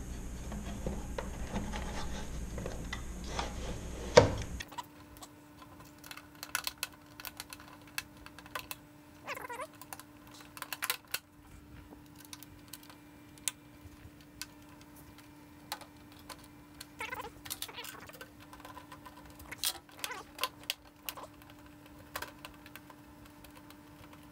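Small metal hardware and an EarthX lithium battery being handled in an aluminium bracket: scattered light clicks and taps, with a sharper knock about four seconds in as the battery seats. A cat meows a couple of times.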